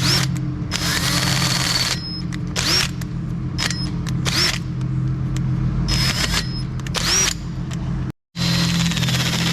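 Power drill boring out the steel hub's caliper-mount bolt holes to about 14.5 mm for the larger RS caliper bolts. It runs in repeated short bursts, each opening with a quick rising whine, over a steady low hum. The sound cuts out completely for a split second about eight seconds in.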